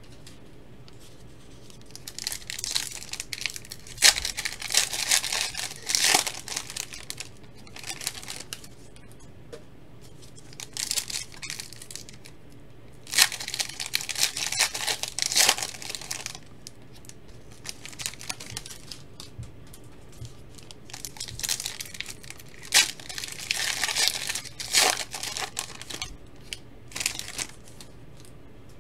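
Foil trading-card pack wrappers being torn open and crinkled by hand, in several bouts of crackling and tearing with sharp snaps and short pauses between.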